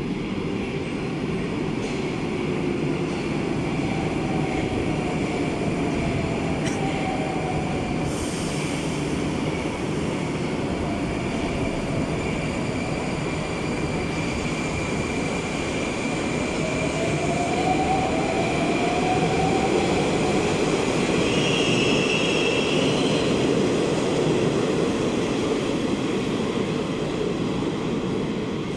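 81-760/761 Oka metro train pulling out of the station and gathering speed, with a steady rumble of wheels on rail. Over it, the traction drive gives an electric whine that glides in pitch, rising clearly about two-thirds of the way through.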